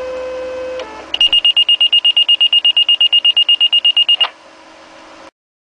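Fire-department dispatch alert tones: a steady low tone for under a second, then a rapid high-pitched beeping about nine times a second for about three seconds. A faint hum follows and cuts off suddenly.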